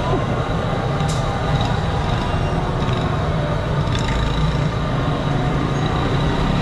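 Steady low rumble of a busy street tea stall, with a faint high whine running through it and short light clicks about one and four seconds in.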